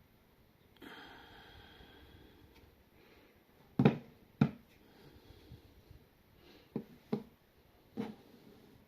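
Sharp clicks: two loud ones about half a second apart, then three fainter ones spread over the next few seconds. Before them a faint steady tone is heard.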